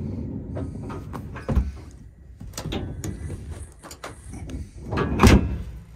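Fifth-wheel trailer's rear slide-out storage tray being worked by hand on its rails, giving a string of knocks and rattles. There is a sharp knock about one and a half seconds in and the loudest thud about five seconds in.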